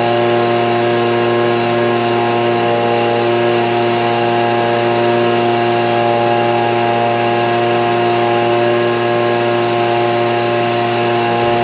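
Echo PB-2620 handheld leaf blower's two-stroke engine running steadily at one constant speed after a cold start.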